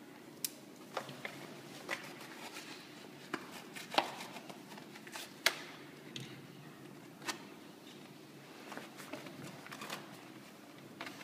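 Yellow padded mailer envelope being handled and opened by hand: paper crinkling and rustling, with irregular sharp clicks and taps scattered throughout.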